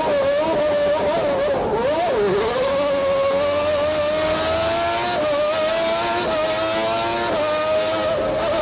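Honda V12 engine of the 1992 McLaren MP4/7A Formula 1 car, heard from the onboard camera at high revs. The note dips and wobbles about two seconds in, then climbs steadily with brief steps at about five, six and seven seconds in, as the car accelerates through the gears.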